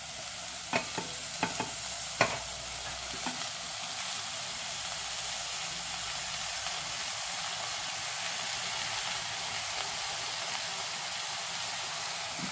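Chopped vegetables sizzling steadily in hot oil in a saucepan, with a few sharp clicks and scrapes of a plastic spatula against the plate and pot in the first couple of seconds.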